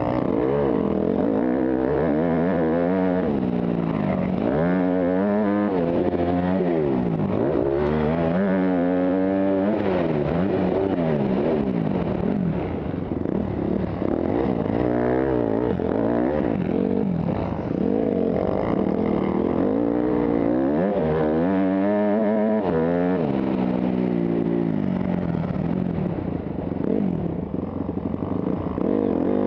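Motocross dirt bike engine, heard on board, revving hard and backing off over and over, its pitch climbing on each pull and dropping between, through corners and straights.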